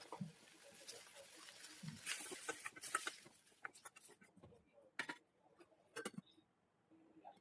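Faint clicks and taps of kitchen utensils being handled, with a brief hissing stretch about two seconds in.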